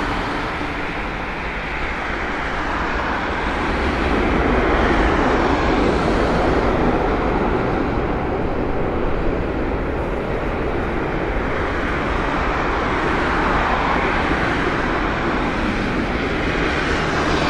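Jet engine noise from a Singapore Airlines Airbus A380's four Rolls-Royce Trent 900 engines as the airliner rolls out along the runway after landing: a steady, loud rumble that dips slightly about a second in and swells again a few seconds later.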